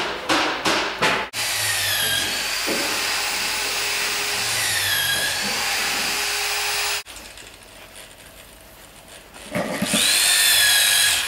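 Power drill boring into wood, running in two long bursts whose whine dips in pitch as the bit bites. A few sharp knocks come in the first second.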